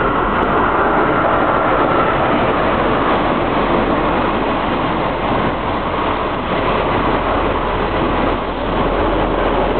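Steady rumble of trains on the station tracks: an electric multiple-unit passenger train running along the platform, with a pair of diesel locomotives hauling a freight train drawing near. A thin high tone fades out about two seconds in.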